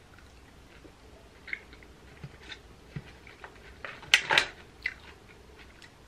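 A person chewing salad leaves, with scattered small clicks. A little after four seconds in comes a louder brief clatter of a metal fork against a plastic salad container.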